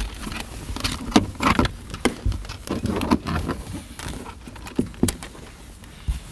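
Hands handling a thin antenna cable against the carpeted trunk trim and seat back: irregular light taps, clicks and rustles.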